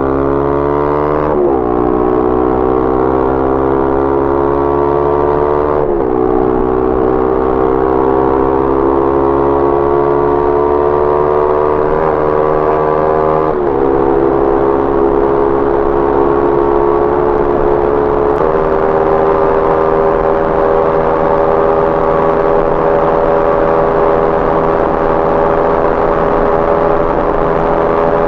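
Bajaj Pulsar NS200's single-cylinder engine through an Akrapovic aftermarket exhaust, accelerating hard at full throttle: the engine note climbs steadily through each gear and drops sharply at four upshifts, then holds a steady high pitch for the last ten seconds.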